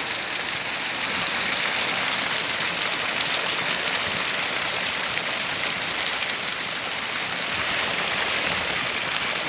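Rushing water running steadily: a constant, even hiss of flowing water.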